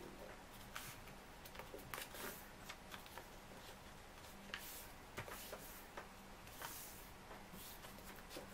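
A sheet of A4 printer paper rustling and crinkling as hands fold it flat and smooth the crease, with short crisp swishes and ticks scattered irregularly throughout.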